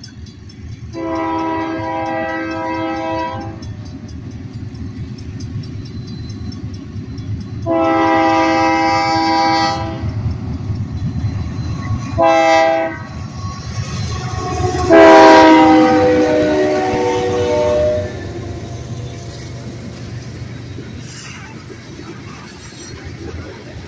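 Union Pacific diesel locomotives sounding the horn in the grade-crossing pattern: two long blasts, a short one, then a long one whose pitch drops as the locomotives pass. Under and after it, the steady rumble and clatter of the coal train's hopper cars rolling by.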